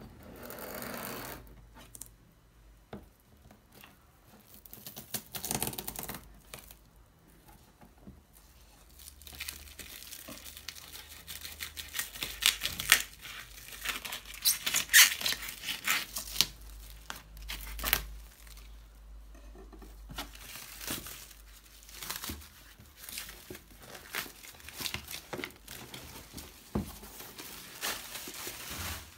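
Plastic wrap being torn and pulled off a cardboard box, crinkling and tearing in irregular bursts that are busiest through the middle and near the end.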